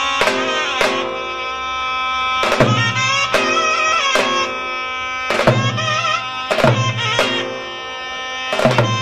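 Zurna and davul playing a slow, heavy zeybek. The reedy zurna holds a steady note under a wavering, ornamented melody, and the deep davul strokes fall at a slow, uneven pace.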